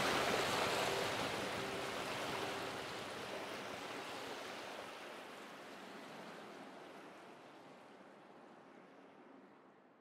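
Steady rushing water noise, fading out gradually over the whole stretch.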